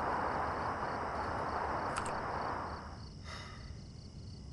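Night-time outdoor ambience: a steady hiss with insects chirping in a faint, even pulse. A click comes about two seconds in, and a car door shuts around three seconds in as the driver gets in, after which the hiss drops away.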